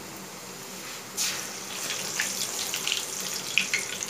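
Puri deep-frying in hot oil: a steady sizzling hiss that jumps louder about a second in and keeps going with scattered crackles and pops.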